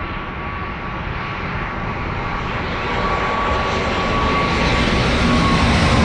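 Jet airliner's engines growing steadily louder as it comes closer, a whine over the rushing noise that begins to drop in pitch near the end as the plane passes.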